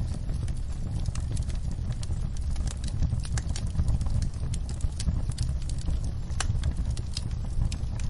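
Wood fire in a fireplace crackling: scattered sharp pops and snaps, several a second, over a steady low rumble.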